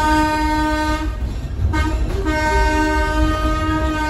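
A train whistle sounds what fits the standard grade-crossing signal: a long blast ending about a second in, a short toot, then another long blast. Under it runs the low rumble of the moving train.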